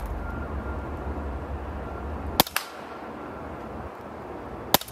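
Two air rifle shots about two seconds apart, each a sharp crack followed a fraction of a second later by a fainter second click.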